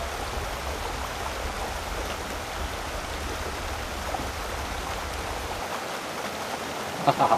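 Steady hiss of outdoor ambience with a low rumble underneath that drops away about five and a half seconds in. A brief voice breaks in near the end.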